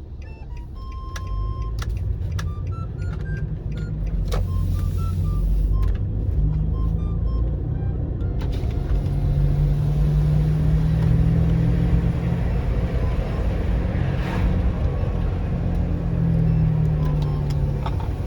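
Nissan Serena CC25 driving, with a low drone from the front that grows with road speed, the noise of a worn front wheel hub bearing. The hum swells and fades several times as the car runs on. A string of short electronic beeps sounds during the first few seconds.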